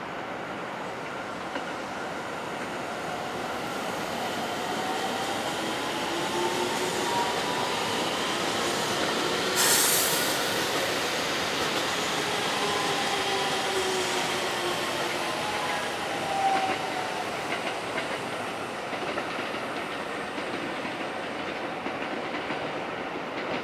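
Two Aonami Line 1000-series electric trains passing each other, their traction motors whining, first rising in pitch, then falling. Wheels clack over the rail joints, with a brief loud burst of noise about ten seconds in.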